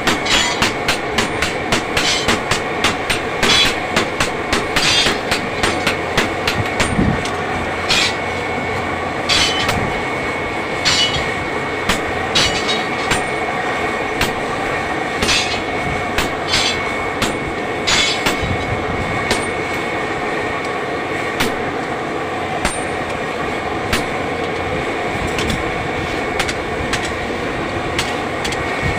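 Hammer blows on metal in a blacksmith's workshop, struck in quick succession at first and more sparsely later, some blows ringing bright. A steady mechanical hum runs underneath.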